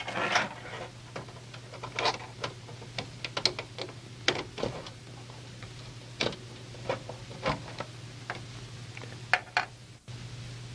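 Irregular small plastic clicks and knocks of computer cables being handled and their connectors pushed onto a motherboard, with a rustle at the start, over a steady low hum.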